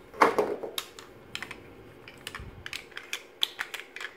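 Plastic robot-toy parts clicking and clattering as they are handled and fitted together, a string of sharp irregular clicks with the loudest near the start.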